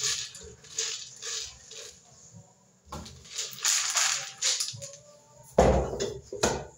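Washed corn kernels poured from a metal pot into a plastic blender jar, rattling in short gritty spills, with a loud clatter of pot or jar near the end.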